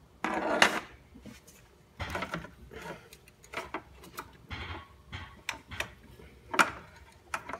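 Hand-tool work on a BMW S54 engine as it is turned over by hand to find top dead center: irregular clicks, scrapes and knocks of metal. There is a louder scrape just after the start and a sharp knock near the end.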